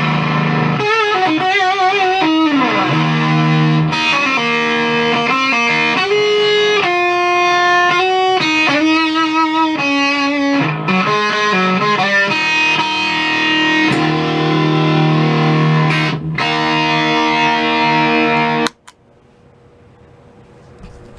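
Electric guitar played through a Maestro FZ-1A clone fuzz pedal, picked up by a phone's microphone: fuzzed single notes with wavering vibrato and a sliding bend, then held fuzzed chords that cut off suddenly about three seconds before the end, leaving only faint hiss.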